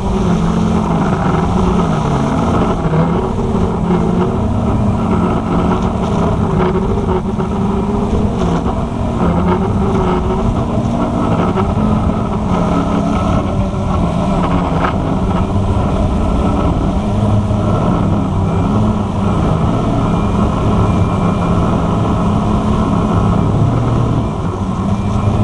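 Walkera QR X350 Pro quadcopter's electric motors and propellers in flight, heard from the on-board camera: a loud, steady multi-tone hum whose pitch wavers up and down as the motors adjust their speed, with a deeper tone joining about two-thirds of the way through.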